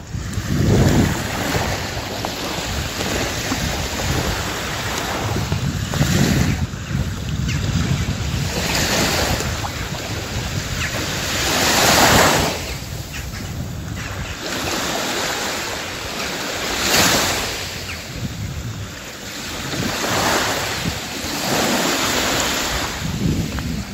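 Small sea waves washing up a sandy beach and running back, each surge of surf swelling and fading every few seconds. The biggest wash comes about halfway through.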